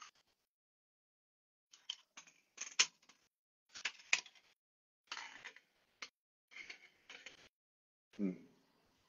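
Handling noise from a phone being adjusted, picked up close on its own microphone: about seven short bursts of scraping and clicking over several seconds, with a brief lower-pitched sound near the end.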